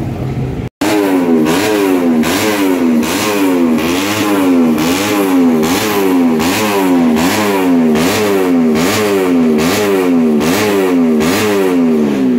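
Yamaha underbone race motorcycle's engine being revved in quick, repeated throttle blips, rising and falling about twice a second. It starts just under a second in, after a brief cut.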